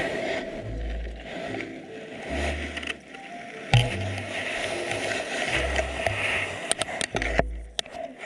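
Sound picked up by an underwater camera: a steady watery hiss with scattered crackling clicks and low surges of moving water that come and go every second or two.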